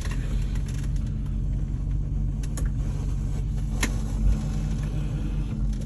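Audi Q7's 4.2 FSI V8 engine running as the car rolls along slowly, heard from inside the cabin as a steady low rumble. A few short clicks, the sharpest just before four seconds in.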